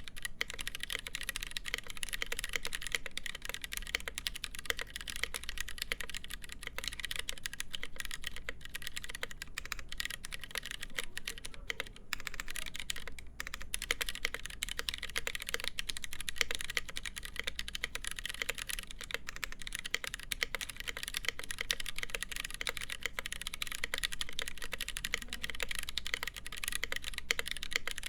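Steady, fast typing on a Noxary 268.1 mechanical keyboard with lubed Gateron Brown tactile switches, a full polycarbonate plate and GMK keycaps: a dense run of key clicks and bottom-outs, with a brief pause about thirteen seconds in.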